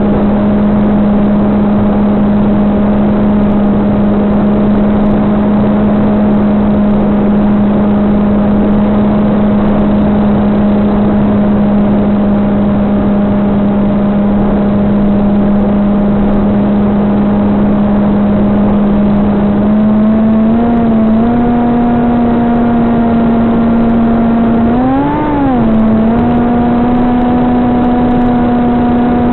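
Onboard audio of an FPV flying wing's SunnySky 2212 2450 kV brushless motor spinning an APC 6x5.5 propeller in flight: a steady hum over a rush of wind and hiss. The pitch steps up slightly about two-thirds of the way in, swoops up and back down briefly a few seconds later, then holds a little higher as throttle is added.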